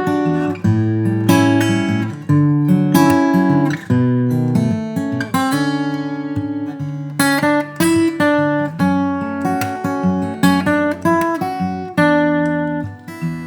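Alvarez MG75ce acoustic guitar, all-solid cedar top with rosewood back and sides, played solo: chords struck and left ringing in a steady rhythm.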